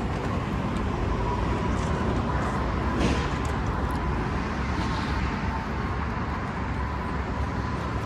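Steady outdoor road noise: a low rumble with a constant hiss, and a slight swell about three seconds in, like a passing vehicle.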